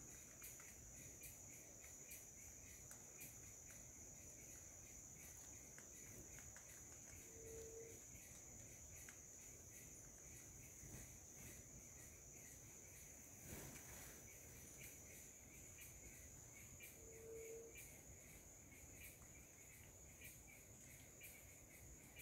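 Faint steady high-pitched insect chirring. Twice, about ten seconds apart, a brief low tone sounds, and a faint click comes about two-thirds through.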